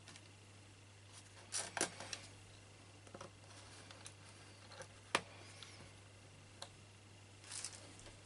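Light clicks and small metallic taps at irregular intervals as tiny screws are set loosely into the holes of a MacBook Pro's aluminium bottom cover. The sharpest click comes about five seconds in.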